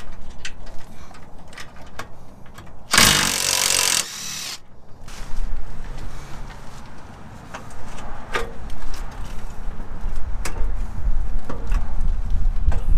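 A power tool runs in one burst of about a second. Scattered clicks of tools against metal come before and after it, while parts are worked off the engine.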